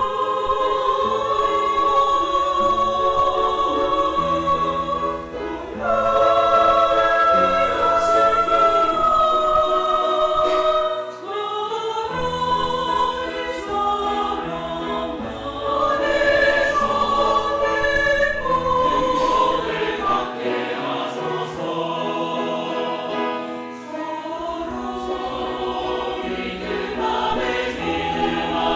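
Church choir singing a hymn in harmony, with long held notes.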